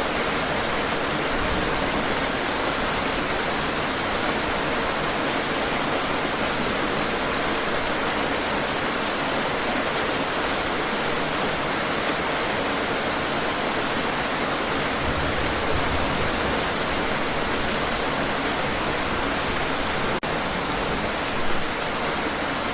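Steady rain falling on a surface, a dense even hiss of drops.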